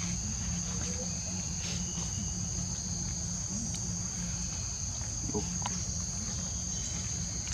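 Insects chirring in a steady, unbroken high-pitched drone, with a steady low rumble underneath and a few faint ticks.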